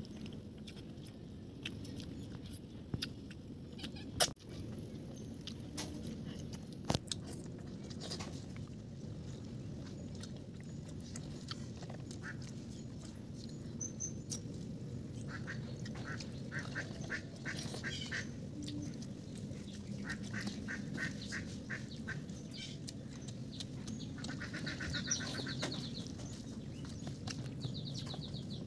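Ducks quacking in quick runs of calls, several runs in the second half. A few sharp clicks come earlier, the loudest about four seconds in.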